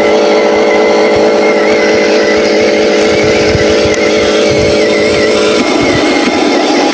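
Remote-control Huina 1501 Scania logging truck running: a steady mechanical whine from its drive, with a wavering high tone on top, changing briefly near the end.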